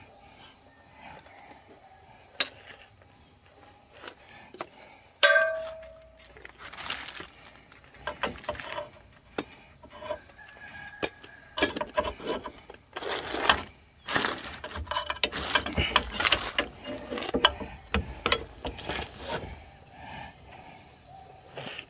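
Steel hardware clinking and clattering as a rear leaf spring hanger bracket and its bolt are handled and fitted against the frame. There is one sharp ringing metal clink about five seconds in, then irregular knocks and rattles.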